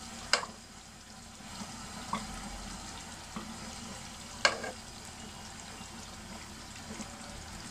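A thick pot of haleem simmering while a silicone spatula stirs it, so it won't stick to the bottom. The spatula knocks sharply against the pot twice, about half a second in and about four and a half seconds in, with a few softer clicks between.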